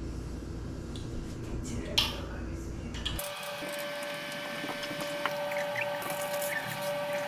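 Small clicks and knocks from handling a kitchen sink cabinet door, with one sharp click about two seconds in, followed by a steady hum with a few faint squeaks.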